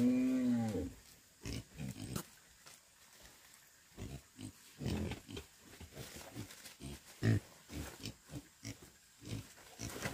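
Farm animal calls: one loud, pitched call that rises and falls in the first second, then a scatter of short grunts.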